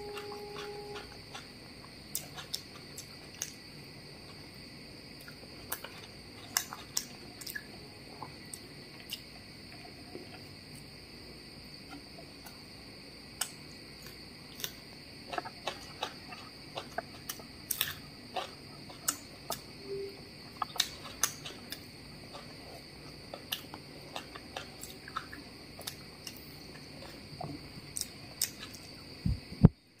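Close-miked hand-eating sounds: fingers mixing biryani rice on a plate, chewing and lip smacks, heard as scattered irregular sharp clicks and squishes. A steady high cricket trill runs underneath.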